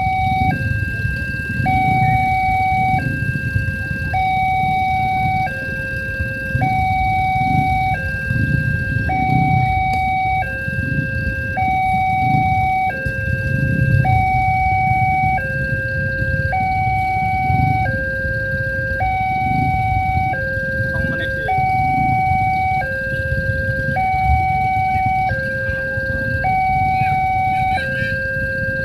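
Electronic warning alarm of a railway level crossing, sounding a steady two-tone pattern that switches between a higher and a lower tone about once a second. A fluctuating low rumble runs underneath.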